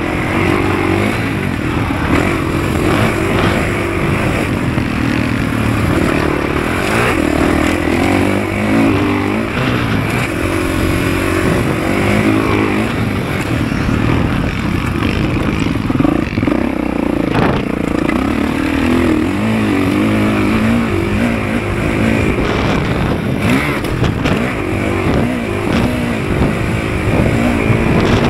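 Motocross dirt bike engine running hard, its pitch rising and falling again and again as the throttle is worked through the gears.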